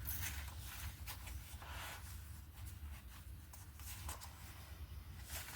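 Paper rustling and sliding as loose pages and cut-out pieces are handled and laid on a page, with a few light taps, over a steady low hum.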